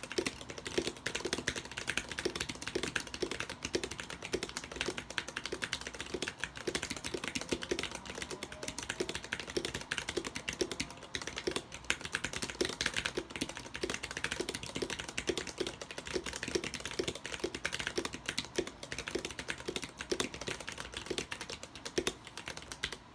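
Continuous fast typing on a 60% mechanical keyboard with lubed vintage Cherry MX Black linear switches, a steel plate, an aluminium case and thick PBT keycaps: a dense, steady stream of keystrokes.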